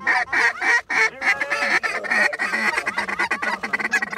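A large flock of geese honking overhead, many short calls overlapping in a constant clamour.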